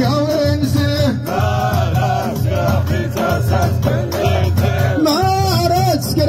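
Ahwach: a group of men singing a chant together in phrases, over steadily beaten frame drums with a jangling, rattling percussion.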